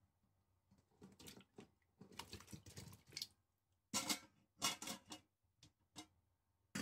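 Corn cobs and carrot chunks sliding off a plastic colander into a stainless steel pot of water, a rustling, splashing run of noise, followed by a few sharp knocks about four seconds in and another near the end.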